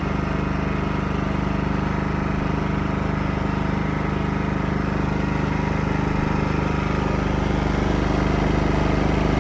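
Wen 56235i 2350-watt inverter generator's four-stroke gas engine running steadily with no load, a constant engine hum that grows slightly louder in the second half.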